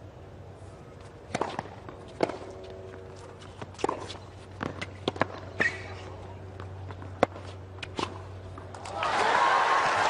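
Sharp, irregular knocks of tennis balls bouncing on a hard court and players' footsteps between points, over a low hum of the stadium. About nine seconds in, a swell of crowd noise rises.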